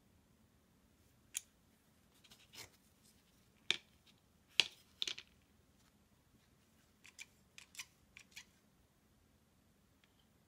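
Scattered sharp clicks and taps of a steel digital caliper and a plastic RAM tray being handled as a memory stick is set up and measured. The loudest knocks come about halfway through, followed later by a quick run of smaller clicks.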